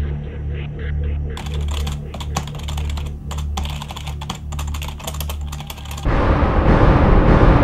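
Rapid typing on a computer keyboard, a dense run of clicks starting about a second and a half in, over a low pulsing music bed. Near the end the clicking stops and a loud sudden crash in the music takes over.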